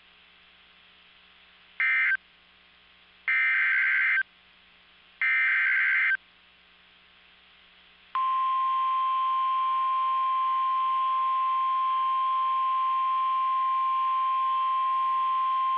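NOAA Weather Radio SAME alert header: three bursts of screechy digital data tones, a short one and then two about a second long, spaced about a second apart. Then the steady 1050 Hz warning alarm tone starts about eight seconds in and holds. The alarm tone signals that a new warning, here a severe thunderstorm warning, is about to be broadcast.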